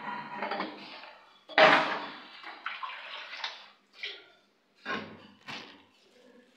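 Water splashing and pouring into a vessel in several short bursts, the loudest about one and a half seconds in: soybean chunks being put to soak.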